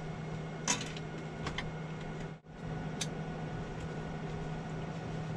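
A steady low hum from an appliance running in the motorhome cabin, with a few light clicks and clinks of small objects handled on the kitchen counter. The sound drops out briefly about two and a half seconds in.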